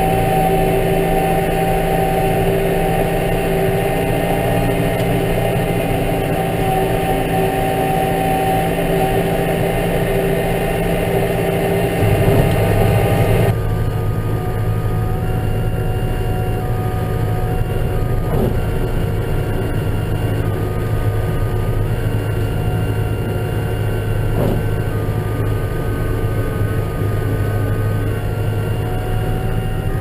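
Tractor engine running steadily under way with a front snow plough. About 13 seconds in, the sound shifts to inside the cab, where a steady air-conditioning whistle sits over the engine.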